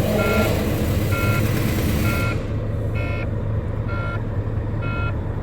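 Volvo FH13's D13 straight-six diesel idling, with a dashboard warning buzzer beeping about once a second while the air brake system is still pumping up pressure. A hiss runs through the first two seconds and cuts off suddenly.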